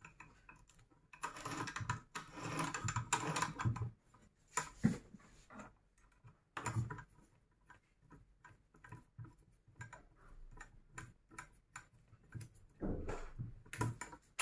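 Irregular small clicks, taps and short scrapes of a T-handle hex key and metal parts as the gear mechanism of a cold-spark firework machine is screwed back together. The busiest handling comes in the first few seconds.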